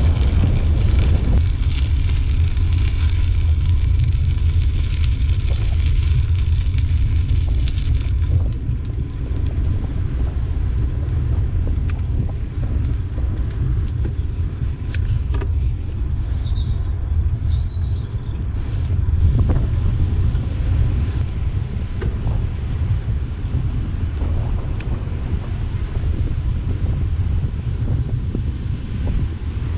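Wind buffeting the microphone of a camera on a moving bicycle, a steady low rumble as it rides along a paved path. Two brief high chirps come about halfway through.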